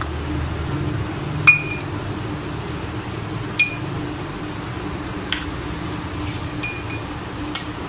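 Light kitchenware clinks: about six sharp taps with a brief ring, the loudest about one and a half seconds in, as a silicone pastry brush is dipped into a cup and worked over buns in baking tins. A steady low hum runs underneath.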